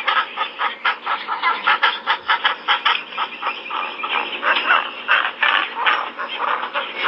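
A flock of waterfowl calling in a rapid, continuous stream of short calls.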